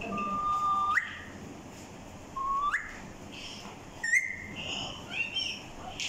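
Alexandrine parakeets whistling. Two held whistle notes each end in a sharp upward flick, a third whistle sits higher, and a few short chirps follow near the end.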